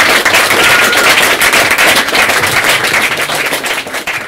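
Audience applauding: dense clapping that starts to die down near the end.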